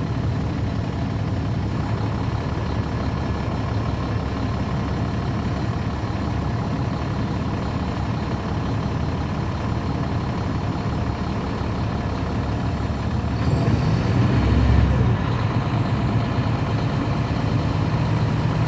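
Caterpillar C13 ACERT diesel engine of a NABI 40-SFW transit bus, heard from on board, running steadily. About thirteen seconds in it grows louder and deeper for a couple of seconds, with a hiss on top.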